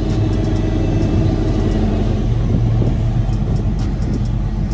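1987 Chevrolet Monte Carlo SS's 305 V8 engine running with a steady low rumble.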